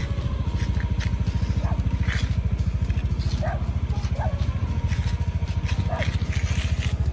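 Small motorbike engine running steadily while riding along at low speed, a fast, even low pulsing heard from on the bike.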